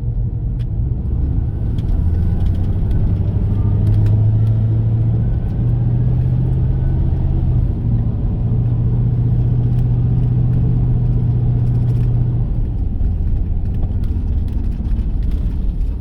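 Car engine and road rumble heard from inside a moving car. A steady low hum comes in a couple of seconds in and drops away about three-quarters of the way through, with a few faint clicks.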